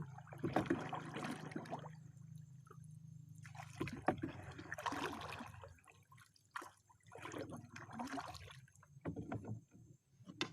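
Water sloshing and splashing in three or four rushing bursts a second or two long, over a steady low hum that fades out about six seconds in.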